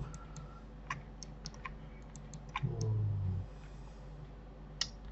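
Scattered clicks of a computer mouse and keyboard, a dozen or so at uneven intervals, mostly in the first half and one near the end. A brief low hum a little past the middle is the loudest sound.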